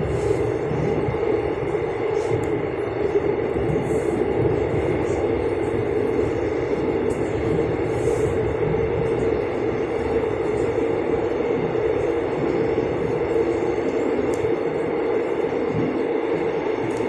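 Steady running noise inside a moving electric commuter train: wheels rumbling on the rails with a constant hum, with no change in pace.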